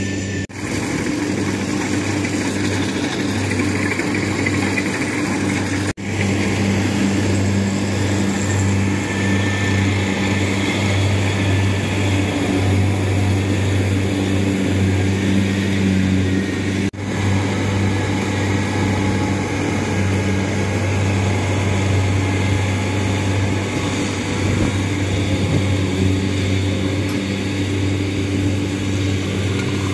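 Rice combine harvester running steadily under load: a constant diesel engine hum with the rushing whir of its cutting and threshing gear. The sound breaks off for an instant three times, about half a second in, about six seconds in and a little past the middle.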